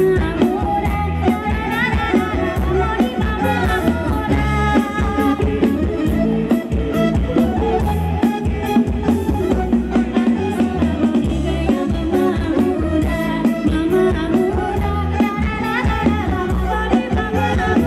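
Live Thai ramwong dance band playing over a loud PA, with a steady drum-kit beat, heavy bass and melodic lines.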